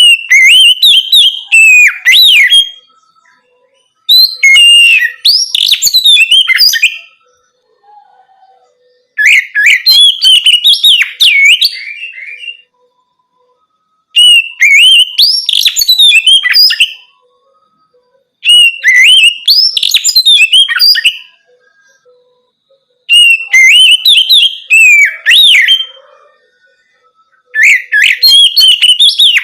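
Oriental magpie-robin (kacer) singing loudly in the clear, open 'ngeplong' style: about seven phrases of rising and falling whistles and chirps, each two to three seconds long, with short pauses between them.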